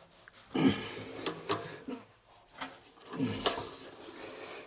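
Plumbing fitting being handled and screwed onto a water heater connection by hand: two bouts of scraping, rubbing and clicking, each opening with a short creak.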